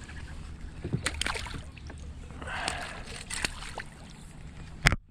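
Water splashing and sloshing around a kayak, with scattered small clicks and knocks on the hull and gear, and one sharp knock near the end.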